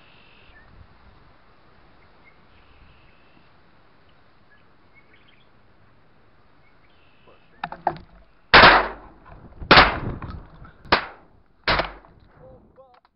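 Four loud shotgun shots fired at ducks, about a second apart over some three seconds, each with a short ring after it, just after a couple of lighter knocks.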